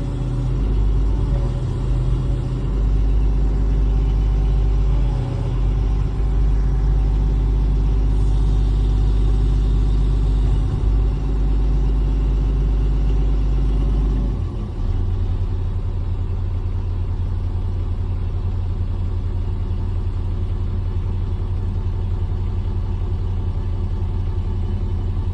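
Tata Hitachi EX200 excavator's diesel engine running, heard from inside the cab. About halfway through the engine note changes suddenly, and it runs a little quieter and steadier after that.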